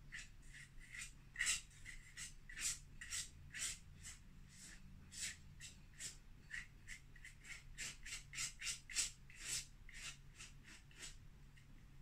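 Quick, scratchy dabbing strokes of a small tool applying white acrylic to the painting surface, irregular, about two or three a second.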